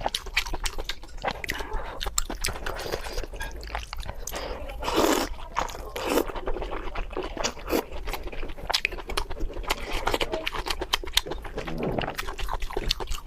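Close-miked eating sounds of spicy pork belly being chewed: rapid wet crunching and smacking clicks, with a few longer, louder mouth sounds about five seconds in and again near the end.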